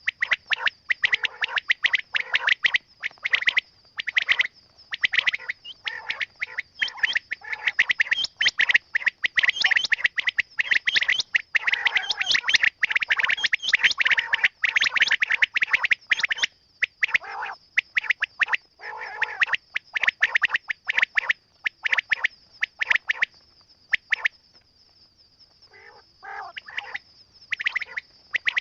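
Quail calling: dense runs of rapid, repeated chirping notes with a brief lull near the end, over a steady high-pitched tone.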